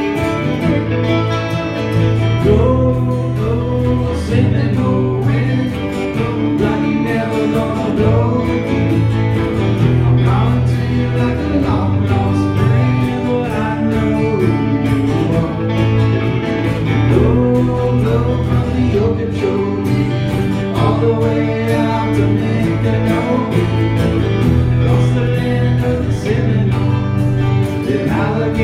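Country band playing an instrumental break, with a lead guitar bending notes over a steady bass line and rhythm guitar.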